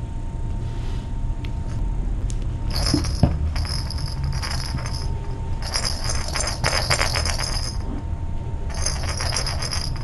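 Small metallic jingling in three bursts of one to two seconds each, over a steady low hum.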